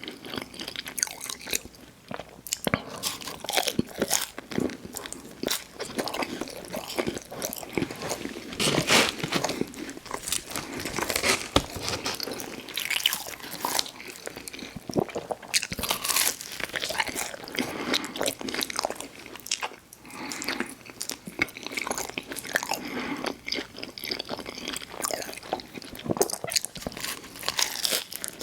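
Close-miked eating: a person biting and chewing food, with frequent irregular crunches and wet mouth sounds.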